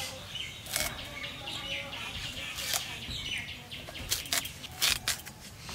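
Taro stalks being cut and peeled against a bonti blade: about half a dozen crisp cuts, several close together in the second half, with birds chirping in the background.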